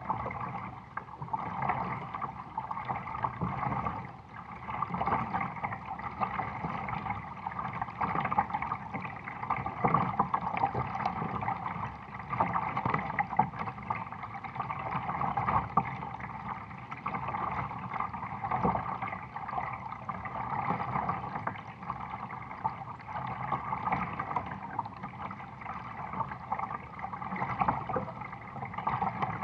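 Water gurgling and washing along the hull of a moving kayak, a steady rushing sound that swells and eases every few seconds.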